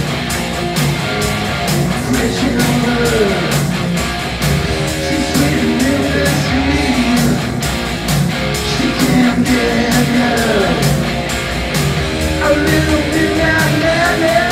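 Live hard rock band playing: distorted electric guitars over drums with a steady driving beat, and a melodic line sliding up and down in pitch. The sound comes straight from the in-ear monitor feed rather than through the hall.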